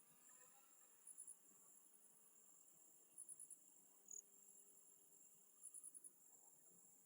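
Crickets chirping faintly: a steady high trill, with groups of three to five quick chirps about every two seconds.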